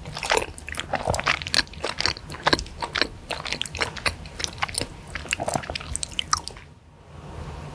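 Close-miked chewing of spicy seblak with flat rice noodles and meatballs: wet, sticky mouth clicks and squelches coming in quick irregular ticks. The sound drops away briefly near the end.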